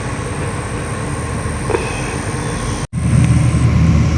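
Steady low rumbling background noise. It cuts out for an instant nearly three seconds in and returns with a heavier low rumble.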